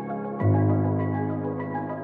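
Background music: soft ambient synth chords, with a new low chord about half a second in and light melodic notes over it.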